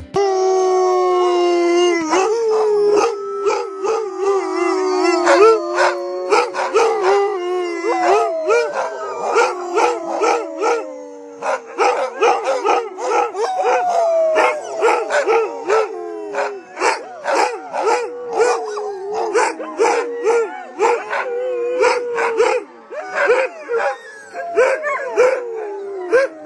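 Huskies howling together, several long gliding howls overlapping at different pitches, with rapid short barks and yips running through from about two seconds in.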